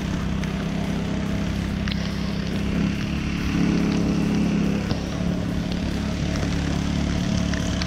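Boat motor running at speed: a steady drone over the rush of wind and water. It rises a little in pitch and loudness about three and a half seconds in, then settles back about five seconds in.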